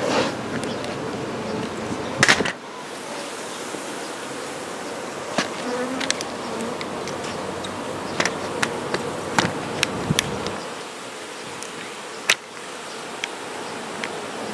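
Honey bees buzzing in a dense, steady mass from an opened hive, with sharp clicks and knocks now and then; the loudest come about two seconds in and again near the end.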